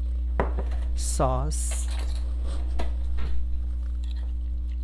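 A metal spoon clinks a few times against a ceramic bowl while stirring a sauce, over a steady low hum.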